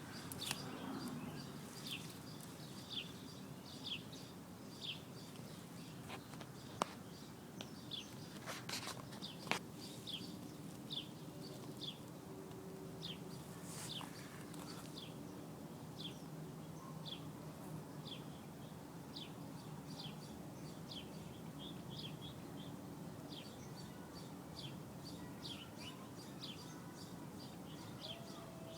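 A bird chirping over and over, short high downward-sliding chirps about one to two a second, over a steady low background hum, with a few sharp clicks about a third of the way in.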